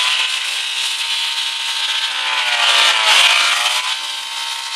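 A car's blown engine racing at high revs as it runs on by itself, a steady high-pitched note with a hiss over it. The pitch dips and climbs back once at the start and again about three seconds in.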